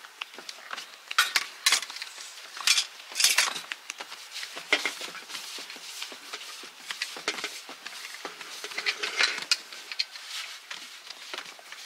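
Hands rounding balls of bread dough on a large floured metal tray: irregular pats, slaps and scuffs of dough and fingers against the metal, louder in a few clusters.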